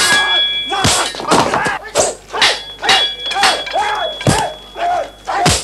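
Staged fight sound effects: a fast run of dubbed punch and kick impacts, about two a second, mixed with short shouts and grunts from the fighters.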